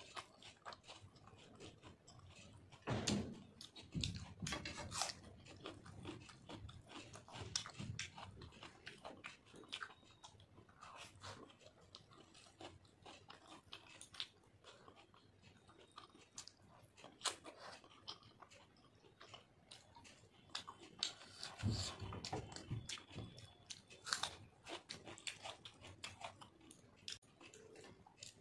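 Close-up wet chewing and lip smacking of someone eating rice and fish curry by hand, a dense run of soft mouth clicks and smacks, louder in two stretches about three seconds in and again a little past twenty seconds.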